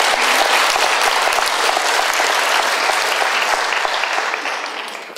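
A large audience applauding, the clapping dying away over the last second or so.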